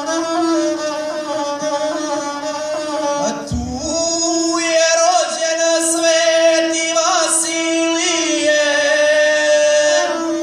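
Gusle, the single-string bowed folk fiddle, played with its strong nasal tone, and a man singing a South Slavic epic song to it in the guslar style.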